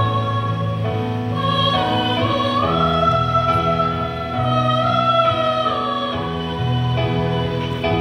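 Mixed choir of men's and women's voices singing held chords in parts. A high voice line rises about two and a half seconds in and holds a long note until around six seconds, over low sustained bass notes.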